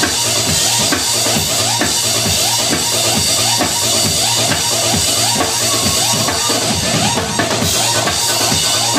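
Loud dance music from a DJ set with a live drum kit playing along, a busy, fast drum beat over it.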